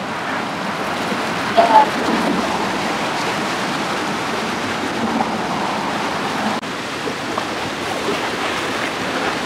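Steady rushing and splashing of seawater moving around bridge pilings and rocks. A short, louder sound breaks in briefly about two seconds in.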